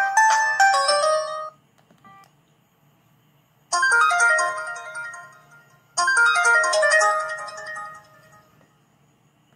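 Samsung ringtone melodies played through a ZTE Z222 phone's small loudspeaker. One melody ends about a second and a half in. After a pause, a short phrase of bright notes starts and plays twice, each time dying away.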